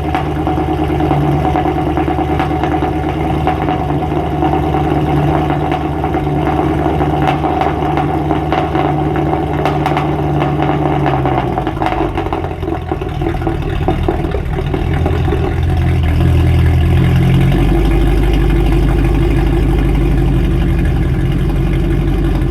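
An engine running steadily. Its hum shifts lower about halfway through and grows louder and deeper near the end.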